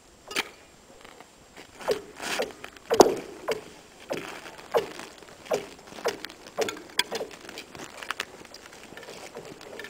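Hatchet chopping into lake ice: a run of sharp blows about one to two a second, each ringing briefly with a dropping pitch, easing off near the end.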